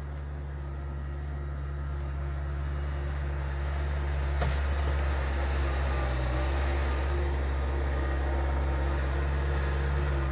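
Gehl skid steer engine running at a steady pitch, getting louder over the first few seconds and then holding, with a single sharp click about four and a half seconds in.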